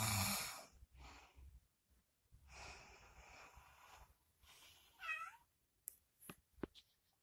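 A person snoring in sleep: a loud rasping snore at the start, then a long breathy exhale. About five seconds in there is one short, high-pitched meow-like call, and a few sharp clicks near the end.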